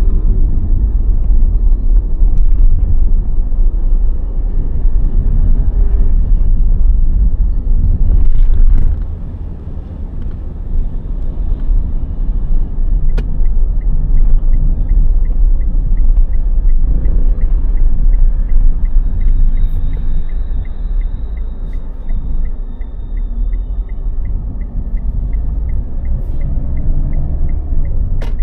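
Street ambience: a continuous low rumble of car traffic. About halfway through, a fast, even ticking of about three ticks a second starts up and keeps going.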